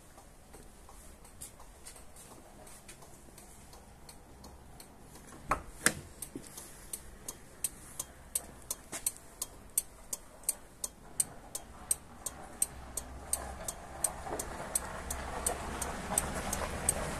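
A car's turn-signal/hazard flasher relay ticking steadily, about two clicks a second, starting just after a louder click about six seconds in. A broad background noise swells over the last few seconds.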